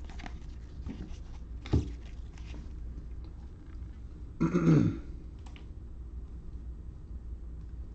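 A person briefly clears their throat about four and a half seconds in, the loudest sound. Around it are faint rustles and ticks of trading cards being handled in gloved hands, with one sharp click a little under two seconds in.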